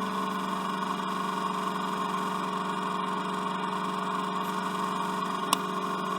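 A vehicle engine running steadily at a constant speed, an even, unchanging hum. A single sharp click sounds about five and a half seconds in.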